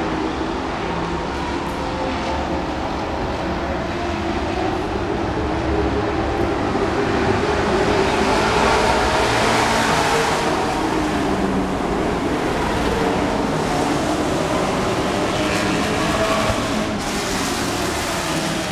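Dirt-track race trucks running laps at racing speed, their engines a steady loud drone from the pack. It swells to its loudest about halfway through as a truck passes close by, then eases off.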